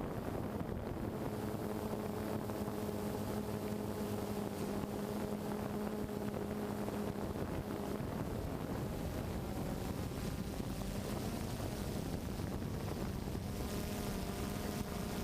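A drone's motor and propellers running with a steady hum of even pitch. The hum fades somewhat in the middle and comes back stronger near the end, over a constant rush of wind noise.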